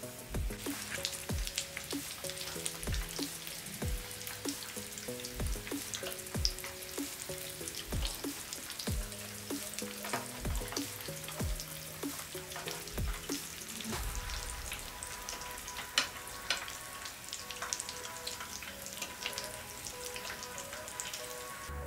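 Hot oil sizzling and crackling around breaded chicken drumsticks shallow-frying in a pan. Behind it runs background music with a steady low beat, which changes to held chords about two-thirds of the way through.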